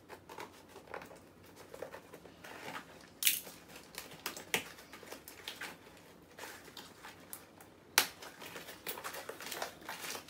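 Small cardboard box being handled and pried open by hand, with its flaps and packing rustling and scattered clicks and taps. Two sharper, louder clicks come about three seconds in and about eight seconds in.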